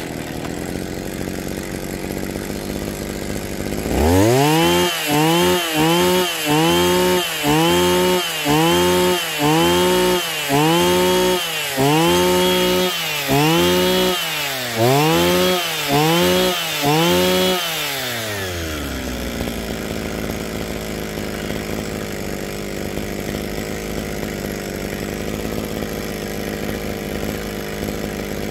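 Kioritz SRE3600 brush cutter's 36cc two-stroke engine idling, then blipped to high revs about once a second, a dozen or so times in a row. Each blip is followed by a quick drop back, and the engine then settles to a steady idle again.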